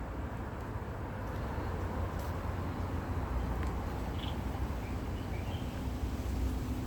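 Outdoor ambience with a steady low rumble, and a few faint high chirps, like a small bird's, about four to five seconds in.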